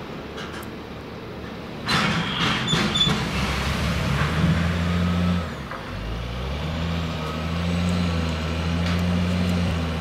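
Side-tipping wagons of a ballast train unloading: a sudden loud metallic clank with a brief high squeal about two seconds in as a wagon body tips, then a steady low mechanical drone that dips near the middle and carries on.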